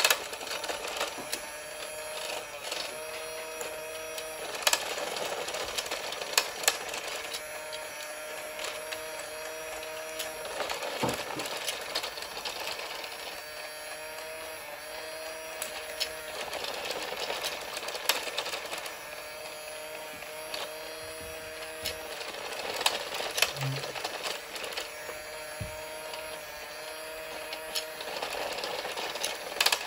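Battery-powered toy fishing game running: its small motor whirs steadily as the ponds turn, with steady tones that come and go, and a few sharp plastic clicks from the rods and fish.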